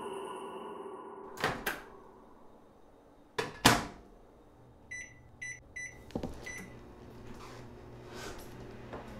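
Microwave oven being used: door clicks, then a louder double clack as the door shuts, a few short keypad beeps, and the oven starts with a low steady hum.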